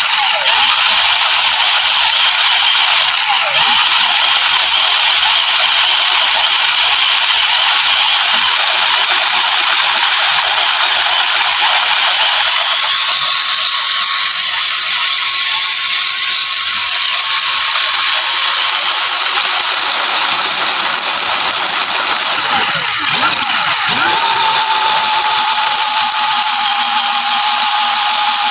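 Small electric motor and gearbox of an RC crawler car running with a steady high whine and gear rattle. About three-quarters of the way through, a clear whining tone comes in and sinks slightly in pitch.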